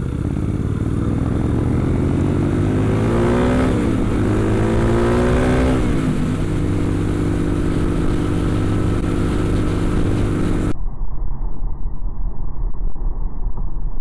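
Suzuki DR-Z400's single-cylinder four-stroke engine pulling hard through the gears, its pitch rising and dropping at two upshifts, then running steadily at cruising speed with wind hiss. Near the end the sound turns abruptly muffled and dull.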